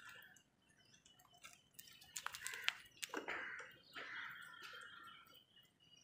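House crows pecking at wet food in a plastic bowl: a cluster of sharp beak clicks and taps about two seconds in, then softer, longer rasping sounds.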